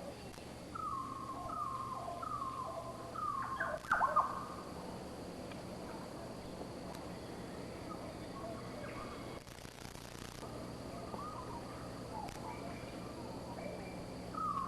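Wild bird calls: a run of four short, slightly falling notes spaced under a second apart starting about a second in, then scattered quieter calls, over a faint steady high tone.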